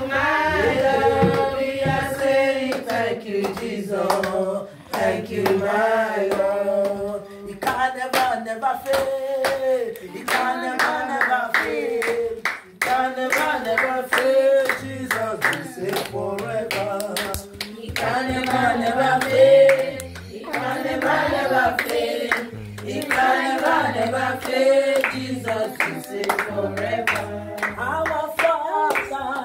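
A woman singing a worship song and clapping her hands along with it.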